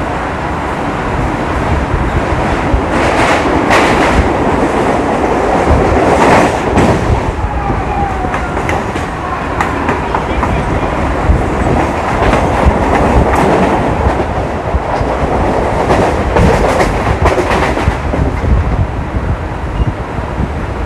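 Mumbai suburban electric local train running at speed: a steady rumble and rattle of wheels on the track, with several louder bursts of clatter.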